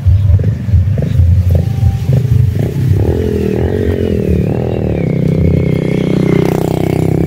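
An engine: a low pulsing rumble at first, then from about three seconds in a pitched hum that rises and falls.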